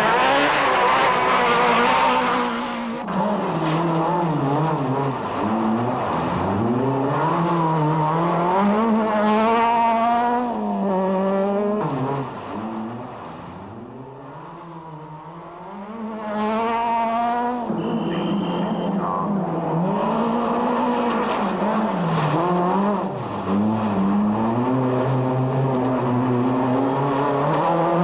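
Skoda Felicia Kit Car rally car engines revving hard. The pitch climbs through each gear and drops sharply at each shift, over and over. The engine is quieter for a few seconds near the middle.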